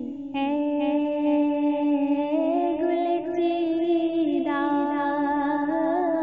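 A woman singing an Urdu naat unaccompanied, in long held notes over a steady hummed drone, with a new phrase entering about half a second in and again near the end.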